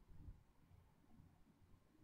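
Near silence: room tone with a faint low rumble.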